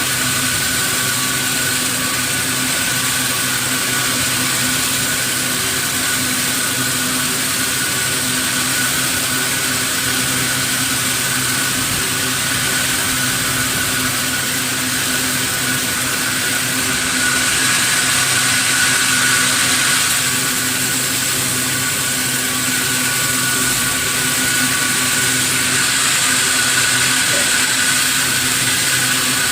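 Sawmill machinery running steadily, with a constant high whine over a hiss; it grows a little louder for a few seconds past the middle.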